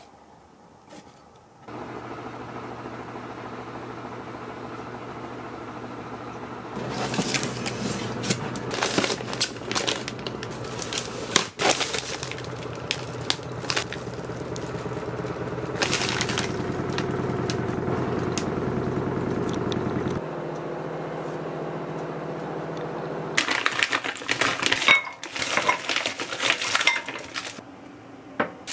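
Plastic packaging crinkling and rustling as a frozen-food delivery is unpacked, over a steady low hum. Near the end, glass and dishes clink.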